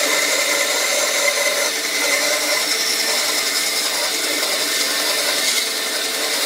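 Electric power tool running steadily with a constant motor whine, working wood.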